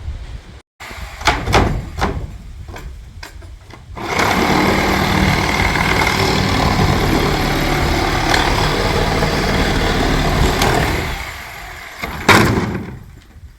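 A few knocks, then a motor runs steadily for about seven seconds and winds down, followed by one loud bang.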